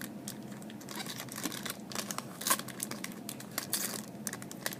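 A trading-card pack wrapper is torn open and crinkled, with irregular crackles and rustles as the cards are handled. A faint steady low hum runs underneath.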